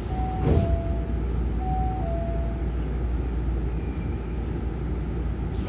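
Double sliding doors of a Hankyu train car closing and meeting with a single thud about half a second in. A two-tone falling door chime sounds twice, and a steady low rumble of the stopped train runs underneath.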